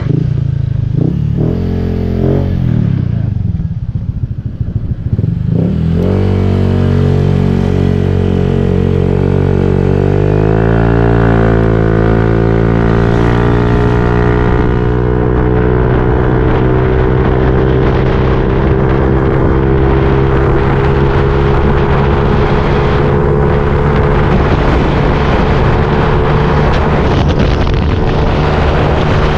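Honda Click 125 scooter's single-cylinder engine running through an Apido V4 aftermarket exhaust, rebuilt with a straight-through inner screen as wide as its 2-inch pipe. It blips unevenly at first, revs rise about six seconds in, and then it holds a steady high-revving drone.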